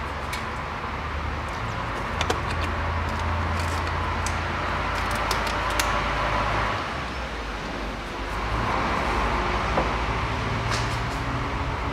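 Engine oil being poured from a plastic jug into the engine's oil filler opening. The flow swells twice, about two seconds in and again about eight and a half seconds in, over a low steady hum.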